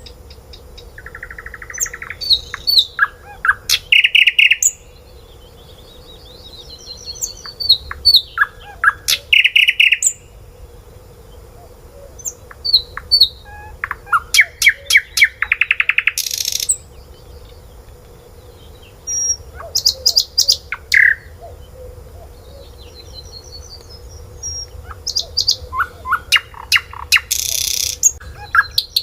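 Small birds chirping and twittering in quick runs of high repeated chirps, several loud bursts a few seconds apart.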